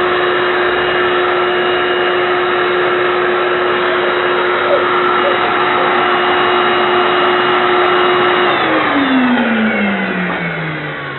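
Electric vacuum cleaner motor running with a steady whine, then switched off about eight and a half seconds in, its pitch falling smoothly as the motor spins down.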